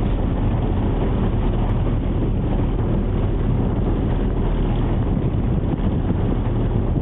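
Boat engine running steadily as a low rumble, mixed with wind blowing on the microphone.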